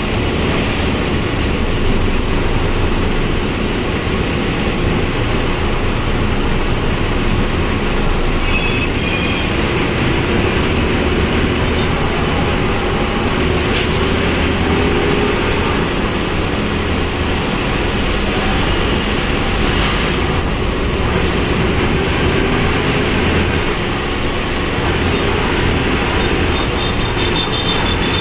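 Volkswagen Volksbus 17.230 OD bus under way, heard from inside the cabin: steady engine and road noise with the transmission growling. A whine rises and falls in pitch about halfway through, and there is a single sharp click near the middle.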